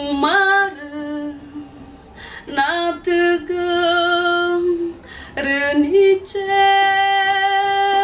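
A woman singing solo without accompaniment: three phrases, each sliding up into a long held note, the last held longest.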